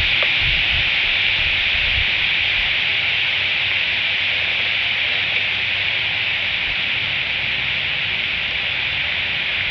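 Steady rain falling on the leaves around an eagle nest, an even hiss picked up by the nest webcam's microphone.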